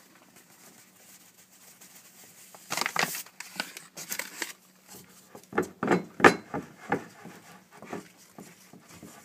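A bag of flour rustling briefly as more flour is added to the dough, then a run of irregular soft knocks and thumps as the wet dough is worked in the mixing bowl.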